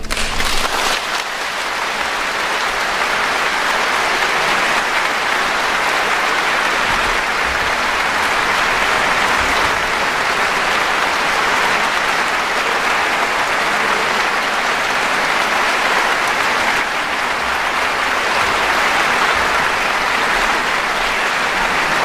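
Concert-hall audience applauding steadily after an orchestral performance ends.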